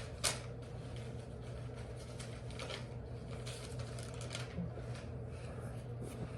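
Quiet room tone: a low steady hum, with a click just after the start and faint scattered rustles.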